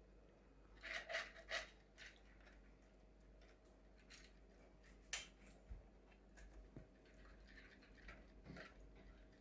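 Faint, irregular clicks and light metallic rattles of a cuckoo clock's weight chain being handled as it is untangled and worked around its gear, the loudest cluster of rattles about a second in.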